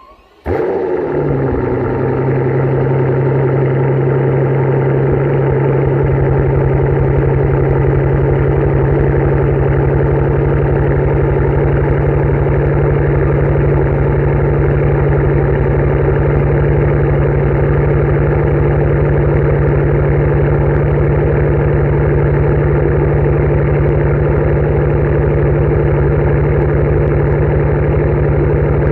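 Mercedes-Benz S65 AMG's twin-turbo V12 heard from the exhaust at a cold start: a brief crank, then the engine catches about half a second in and settles into a loud, steady fast idle. The uploader says it is misfiring after sitting for two weeks.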